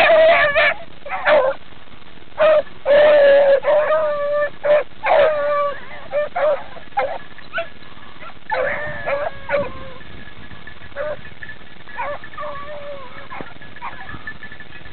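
Beagles baying while running a rabbit on the scent: long, drawn-out bawls, loud and close together in the first half, then fainter and more scattered.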